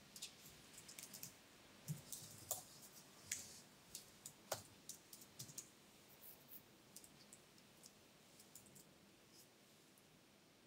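Faint, irregular keystrokes on a laptop keyboard as code is typed, thinning out over the last few seconds.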